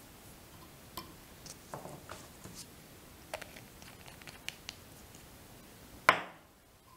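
Small clicks and light scratchy rustles of fingers handling a tied fly in the jaws of a fly-tying vise, then one sharp, loud knock about six seconds in that dies away within half a second.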